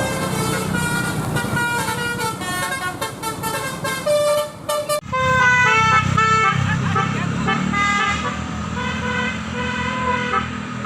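Telolet basuri musical horns playing quick runs of short notes stepping up and down in pitch, honked back and forth between a Honda Vario scooter and a tour bus. The tunes change abruptly about halfway through, over a low engine rumble.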